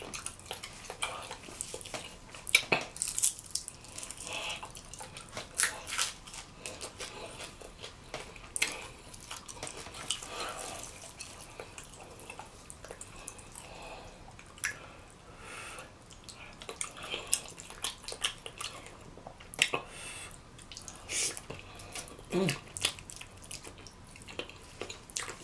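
Close-up wet eating sounds: chewing, lip smacking and sticky mouth clicks as food dripping with cheese sauce is eaten by hand, in an irregular string of short sharp clicks.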